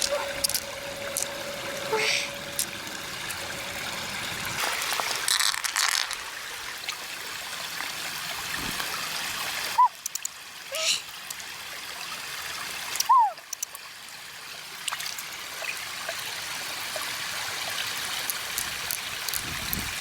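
Water trickling and flowing steadily, with a couple of short falling chirps about halfway through.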